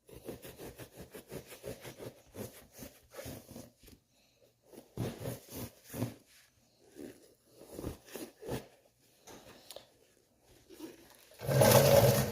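Serrated bread knife sawing through thick seat foam in quick back-and-forth strokes, about four or five a second at first, then slower and uneven, with one louder, longer rasp near the end.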